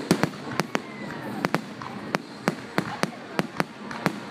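Aerial fireworks bursting overhead in a rapid, irregular series of sharp bangs, more than a dozen in a few seconds.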